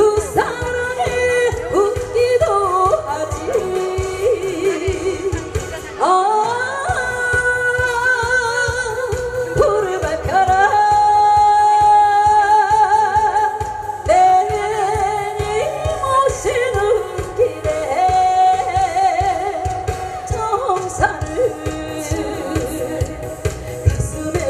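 A woman singing a Korean pop song into a microphone over musical accompaniment with a steady beat, holding long notes with a wide vibrato.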